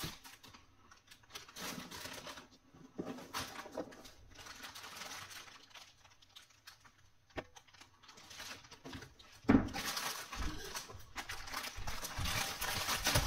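Soft scattered handling rustles, then from about nine and a half seconds in, a plastic poly mailer bag crinkling loudly as it is handled and cut open with scissors.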